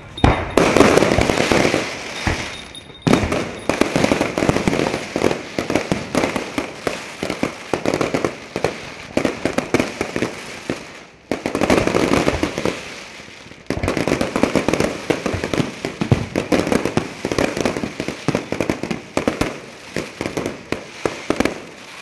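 Aerial fireworks bursting and crackling in dense, continuous volleys, with a fresh loud barrage breaking out right at the start and again about 3, 11.5 and 14 seconds in after brief lulls.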